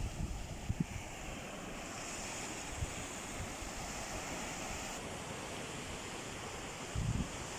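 Sea surf washing steadily on the shore, with wind buffeting the microphone in short low gusts, the strongest about seven seconds in.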